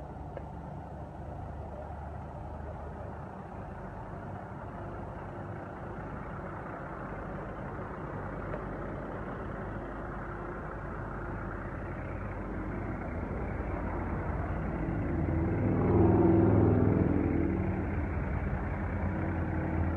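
Kenworth T800 semi truck's diesel engine running at low speed as the truck pulls slowly by. It grows steadily louder, is loudest about sixteen seconds in as the truck passes close, then eases off a little.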